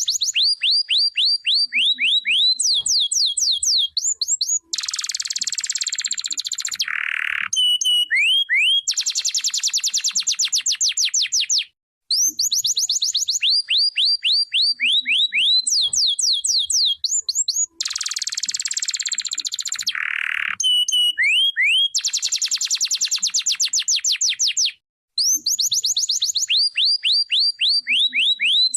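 Domestic canary singing fast trills of repeated sweeping notes, broken by dense rapid rolls and one lower buzzy note. The same song phrase repeats about every 13 seconds with brief pauses.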